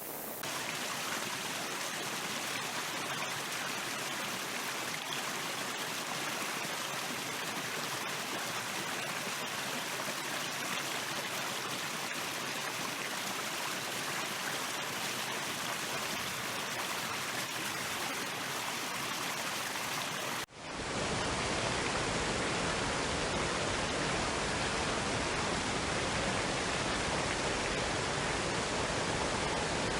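Steady rushing of flowing stream water. About two-thirds of the way through it drops out for a moment and cuts to another water recording that is a little louder and has more low rumble.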